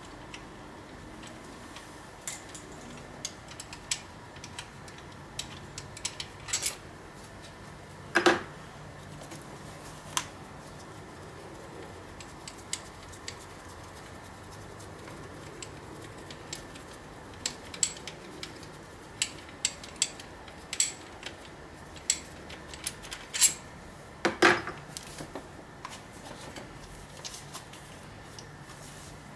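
Scattered clicks and knocks of gloved hands handling parts around a Ford Duratec-HE engine's throttle body, with two louder clunks, one about eight seconds in and another about twenty-four seconds in, over a faint steady hum.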